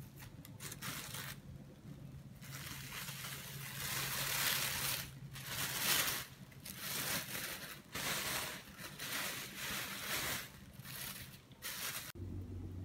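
Clear plastic bag crinkling and rustling in irregular bursts as it is wrapped around a head of hair, over a faint steady hum. The rustling cuts off suddenly near the end.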